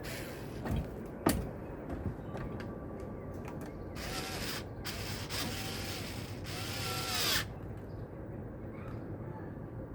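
Cordless drill/driver running in three short bursts, its motor speeding up and slowing down in each, driving in the screws that hold a ceiling fan blade. A single sharp click comes about a second in.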